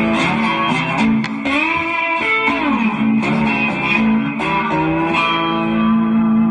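Electric guitar music: picked notes bending up and down in pitch, settling into a long held note near the end.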